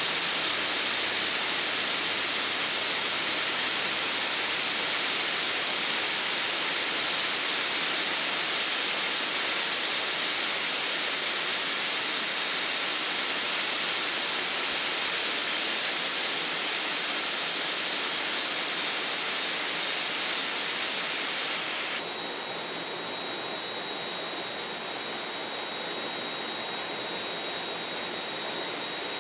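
Steady rain falling, an even hiss. About two-thirds of the way through it changes abruptly to a slightly quieter, duller rain hiss with a faint steady high tone.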